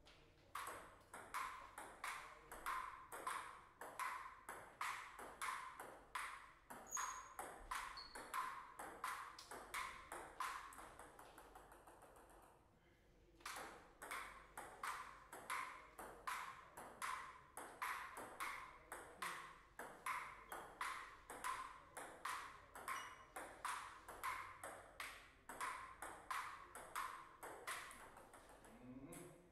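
Table tennis ball being hit back and forth, a steady run of sharp clicks from bat and table at about three a second, in two long rallies with a short break between points about twelve seconds in.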